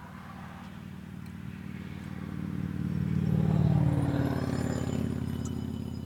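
A motor vehicle driving past the parked car: its engine and tyre noise swell to a peak a little past the middle, then fade as the pitch drops.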